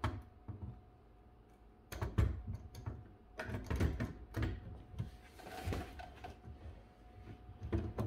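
Metal clicks, knocks and a brief scrape as the removable carriage of a 1931 Urania 7 typewriter is set back onto the machine and settled into place. Two clicks at the start and a quiet second, then clusters of knocks from about two seconds in, a short scraping slide past the middle, and a few light clicks near the end.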